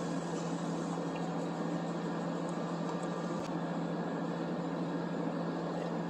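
Steady machinery hum with one low droning tone, unchanging, and a faint click a little over three seconds in.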